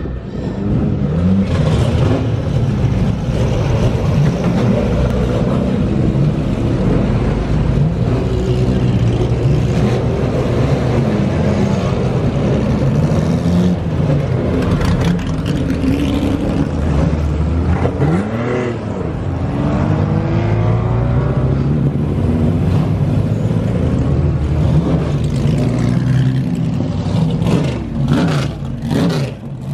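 Several historic GT and sports racing car engines idling and being revved as the cars roll out of the paddock, the pitch rising and falling with each blip. One car passes close about two-thirds of the way through.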